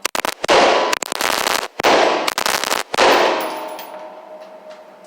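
Select-fire gun shooting on full automatic: three fast bursts in quick succession over about three seconds. The echo then dies away over the last two seconds.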